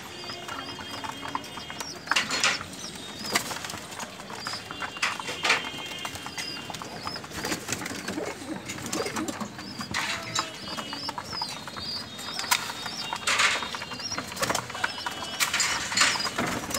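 A flock of domestic pigeons pecking grain off a hard floor: a steady patter of quick beak taps and scuffling feet, with a few louder brief rustles of feathers and wings.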